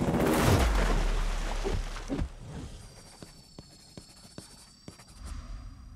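Film sound effects under an animated production-company logo: a loud crash-like boom with a deep rumble that fades over about two seconds, then a run of sharp clicks with a faint high whine.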